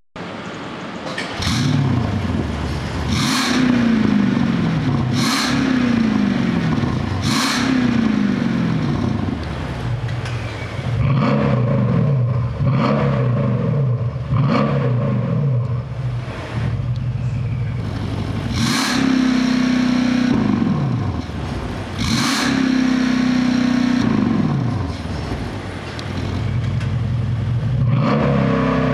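Mercedes-AMG S63 (W222) twin-turbo V8 revved while standing, through an OFK aftermarket exhaust: a series of throttle blips whose pitch falls away after each, a quick run of blips in the middle, and two longer held revs in the back half.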